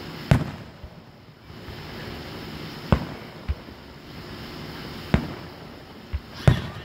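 Distant aerial fireworks shells bursting: four sharp booms a couple of seconds apart, each trailing off in a short echo, with two softer low thuds between them.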